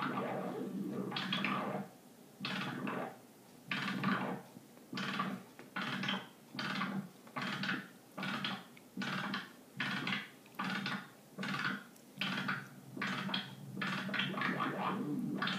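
Mogol synthesizer voice driven by a jerk-equation chaos circuit, the chaotic signals sweeping its pitch and filter cutoff. The tone runs continuously at first, then from about two seconds in stutters into short pulses about twice a second, and runs more continuously again near the end.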